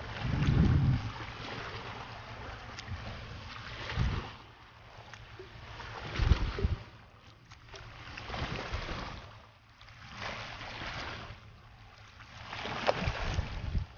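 Kayak paddle strokes: water swishing and dripping off the paddle blades, swelling about every two seconds. Wind rumbles on the microphone a few times.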